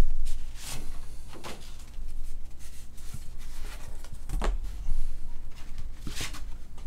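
Stiff cardboard sheets from a photo pack being handled and slid against each other: a few short, scraping paper swishes over low handling rumble.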